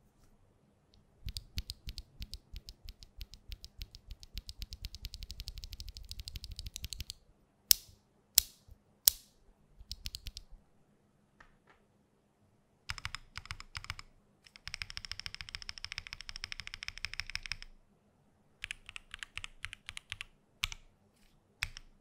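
Typing on a Haven65 mechanical keyboard with lubed Moyu x XCJZ Snow Grape linear switches, an aluminium plate, no case foam and GMK keycaps. It starts about a second in with rapid runs of keystrokes lasting a few seconds each, and is broken by three louder single presses about eight seconds in and a short pause about eleven seconds in.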